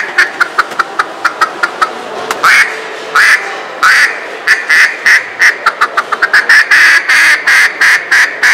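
Mouth-blown duck call sounding a hen duck's quacks: fast runs of short quacks, a few longer, drawn-out quacks near the middle, then another quick run that stops abruptly at the end.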